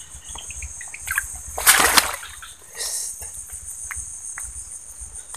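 A hooked baung catfish splashing and thrashing at the water's surface as it is reeled in: one loud splash about two seconds in and a smaller one about a second later. Insects chirr steadily throughout.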